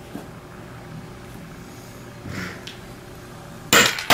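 Near the end, a hammer sharply strikes a hole punch driving it through the vinyl of a car soft top.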